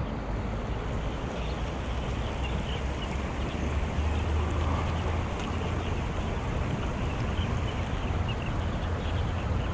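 Shallow stream water rushing steadily over stones, with wind buffeting the microphone as a low rumble.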